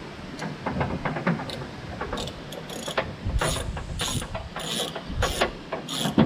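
Socket ratchet clicking as it backs out a 10 mm bolt holding the exterior door handle inside a truck door. Light clicks at first, then a run of about five strong ratcheting strokes in the second half, roughly every two-thirds of a second.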